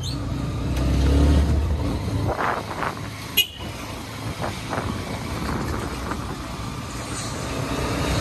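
Motorcycle engine running at low speed, strongest in the first two seconds, with a short horn toot about three and a half seconds in.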